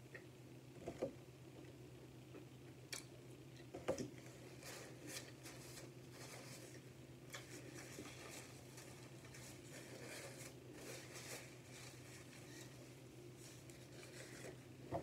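Faint close-up chewing of steak, with a few sharp clicks, and a paper napkin rustling through the middle, over a steady low hum.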